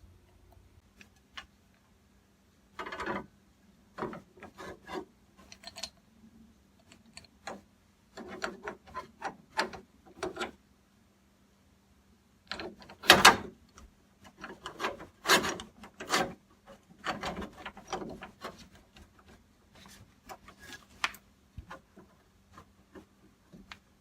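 Doorknob hardware being worked into place on a door: irregular clicks, knocks and scraping rubs as the second half of a Kwikset knob is fitted onto the spindle and turned to line up the screw holes. The loudest knocks come about halfway through.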